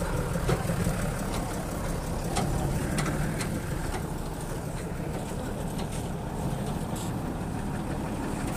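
A vehicle engine running steadily at idle, a low continuous rumble, with a few faint clicks over it.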